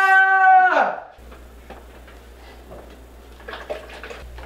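A young man's long, loud scream at one steady pitch, which falls off and ends about a second in. After it comes a quiet kitchen with a low hum and a few faint clinks and taps of a frying pan and utensils at the stove.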